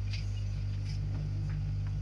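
Steady low electrical hum, with a few faint light clicks.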